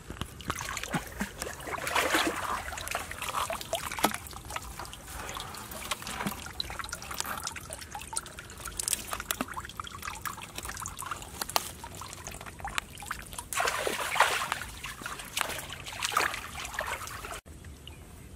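River water splashing and sloshing in irregular bursts around a person wading and groping by hand in the shallows, with scattered small knocks.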